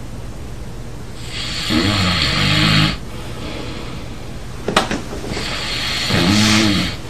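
A sleeping person snoring loudly, two long rasping snores about four seconds apart, each rising and falling in pitch. A single sharp click falls between them.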